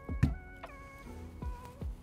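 Background music: held synth-like tones over a few low, decaying beats.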